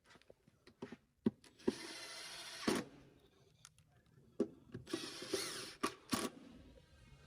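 A power drill/driver driving two screws in two short runs, each about a second long. A few light clicks come before the first run, and each run ends with a sharp click as the screw seats.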